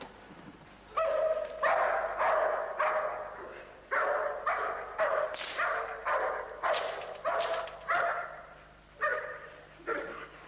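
Dog barking repeatedly, about two barks a second, starting about a second in.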